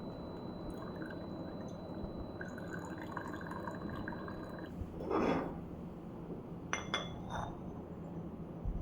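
Ninja coffee maker brewing, with water dripping and trickling into a glass carafe. A brief hiss rises and falls about five seconds in, and a few short clinks follow around seven seconds.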